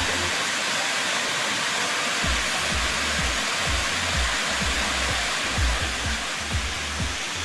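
Waterfall rushing in a steady hiss, with wind buffeting the microphone in low rumbles that come and go.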